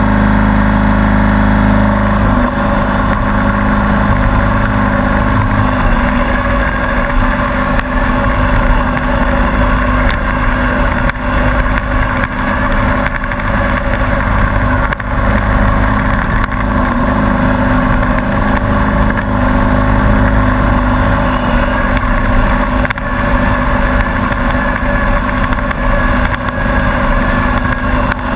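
MTD riding lawn mower's engine running loud and close while the mower drives along a rough dirt trail. About two seconds in, the even drone turns rougher and choppier and stays that way.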